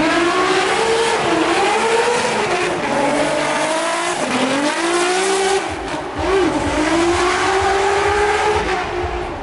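Drift car's engine revving hard, its pitch rising and falling as the throttle is worked, with tyres squealing through a smoky slide.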